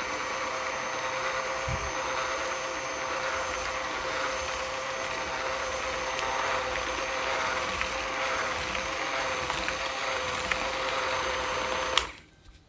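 An electric motor running steadily with a hum and whine, then switched off abruptly about twelve seconds in.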